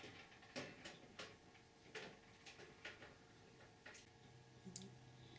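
Faint, scattered light clicks and taps, about half a dozen spread a second or so apart, from handling parts inside a computer case.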